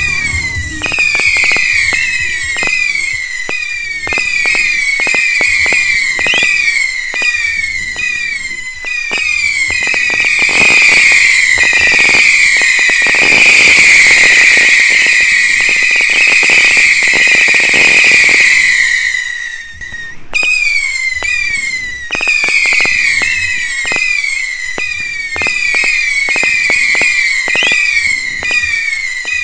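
Whistling fireworks and firecrackers going off in quick succession: many overlapping shrieking whistles, each falling in pitch, over a dense rattle of sharp cracks. It is loudest and thickest in the middle, thins for a moment about two-thirds of the way through, then the whistles and bangs carry on.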